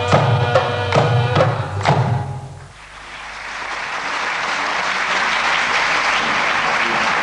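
Qawwali music ends about two seconds in with a held note and a few last drum strokes; audience applause then rises and carries on.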